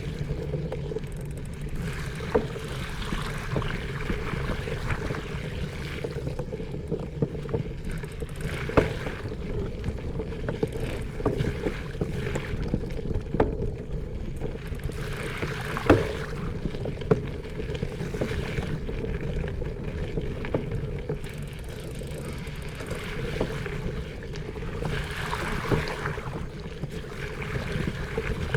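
Bicycle in motion: a steady hum from the riding, with sharp clicks and rattles every few seconds as it goes over bumps, the loudest about sixteen seconds in.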